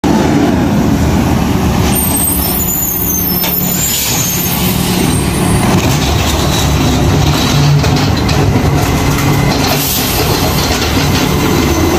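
A heavy diesel truck engine running steadily, with a brief high hiss about two to four seconds in.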